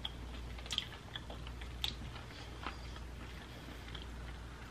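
Close-miked chewing of a bite of honey barbecue rib: a few scattered soft mouth clicks and smacks, spaced about half a second to a second apart, over a faint steady low hum.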